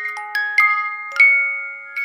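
Music: a slow lullaby melody of bell-like struck notes in the glockenspiel or music-box register, about five notes in two seconds. Each note is left ringing over the next, and the longest-held note comes just past the middle.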